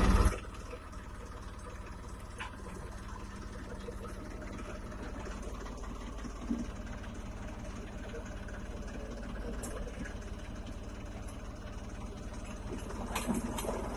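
Tractor engine running steadily with a deep, even hum, with a few brief louder moments.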